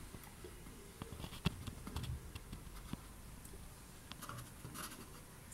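Faint, irregular light clicks and taps with a brief rustle near the end: handling noise.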